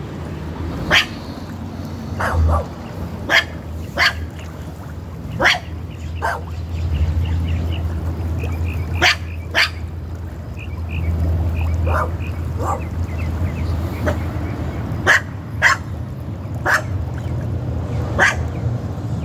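A dog barking repeatedly, single barks and pairs every second or two, over a steady low rumble.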